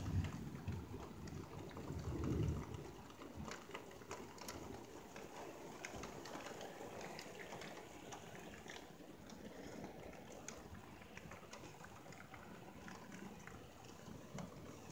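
Steady rain falling outside, heard faintly through a window pane, with scattered drops tapping. A low rumble fills the first two to three seconds.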